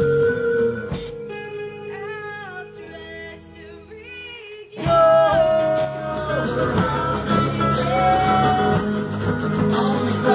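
Live band playing: electric guitars and bass with a woman singing. The band drops to a quieter passage with held notes and her voice, then comes back in loud and full about five seconds in.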